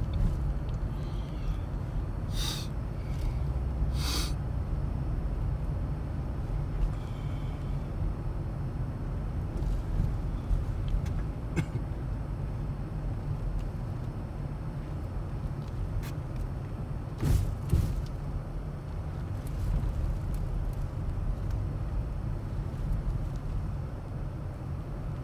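A car driving on a snow- and ice-covered road, a steady low rumble of engine and tyres, with a few short, sharp clicks.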